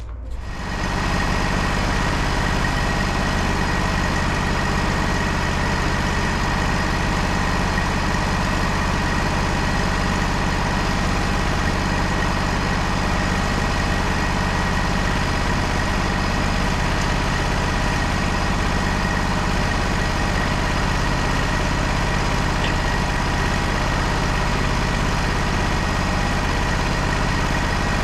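Wood-Mizer LT35 portable sawmill's engine running at a steady speed, with a constant hum and a faint high whine held throughout; it comes in abruptly at the start.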